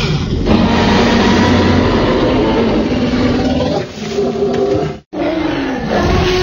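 Dinosaur roar sound effect for an animated T. rex: a loud, rough, long roar that cuts off about five seconds in. Just after it, a second sound with steady held tones starts.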